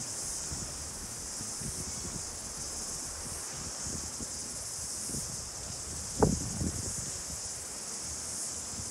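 Steady high-pitched insect chorus shrilling from the bush, with a low uneven rumble underneath. A single short bump about six seconds in is the loudest sound.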